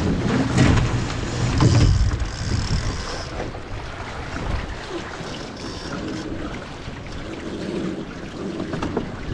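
Wind buffeting the microphone over water washing against the hull of a Melges 15 sailing dinghy under way, gusting strongest in the first two seconds and then steadier.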